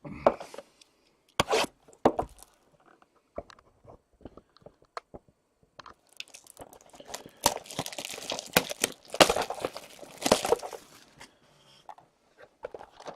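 Plastic wrapping on a box of hockey cards being handled and torn open. A few scattered taps and clicks give way, about six seconds in, to several seconds of dense crinkling and tearing.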